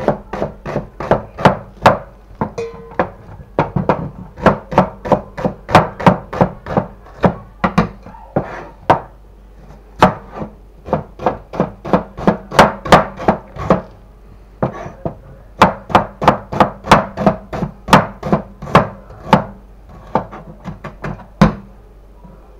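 Kitchen knife slicing shallots on a plastic cutting board: a steady run of sharp knocks as the blade strikes the board, about three to four a second, with a short pause partway through.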